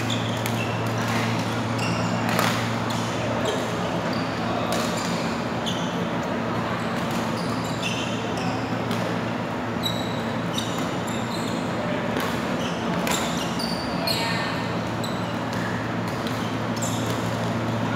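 Badminton rally sounds: sharp racket hits on the shuttlecock and short shoe squeaks on the court floor, echoing in a large hall, over a steady low hum.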